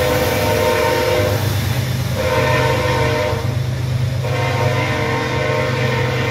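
Diesel locomotive air horn sounding a long blast that breaks off about a second and a half in, a short blast, then another long blast from about four seconds in. Underneath, the steady rumble and rattle of double-stack container cars rolling past.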